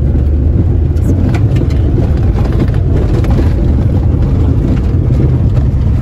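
A car driving on a mountain road: a loud, steady low rumble of engine and road noise, with a few faint knocks.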